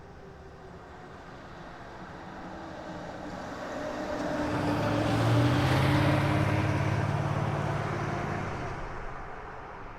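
A car driving past: engine hum and tyre noise swell as it approaches, peak as it passes a little past halfway, then fade as it moves away.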